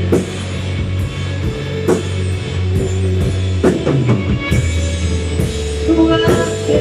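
Live rock band playing: electric guitars, bass guitar and drum kit, with cymbal and drum hits keeping a steady beat under sustained bass and guitar notes.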